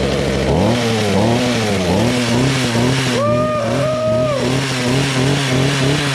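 Echo HC150 hedge trimmer's small two-stroke engine running on its new aftermarket carburetor, revved up and down several times, its pitch rising and falling. A higher whine comes in twice, briefly, about three to four seconds in. The throttle is now answering, where before the engine held at a high idle.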